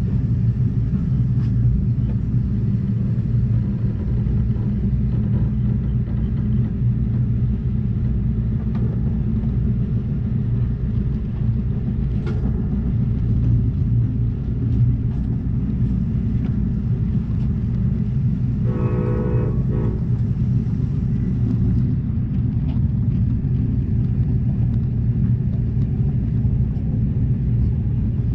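Steady low rumble of an Amtrak Cascades Talgo passenger train running along the track, heard from inside the car. A short pitched tone sounds briefly about two-thirds of the way through.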